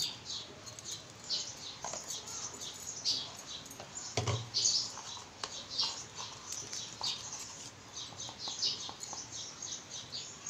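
High-pitched animal chirping, several short chirps a second in an irregular run, with a single dull knock about four seconds in.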